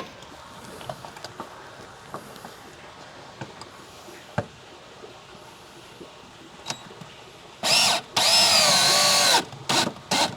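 A power drill/driver, likely driving a screw into a wooden support: several seconds of light handling clicks and knocks, then a brief blip of the drill followed by about a second and a half of running, its pitch rising and falling.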